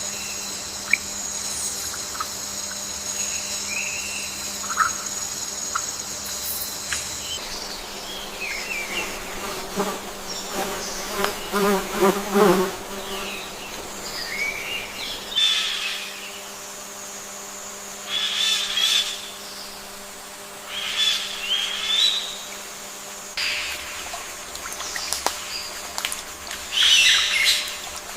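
Rainforest wildlife sounds: a steady high insect trill for about the first seven seconds, then scattered insect chirps and bird calls, with a run of rapid pulsed calls around the middle and several louder bird calls near the end.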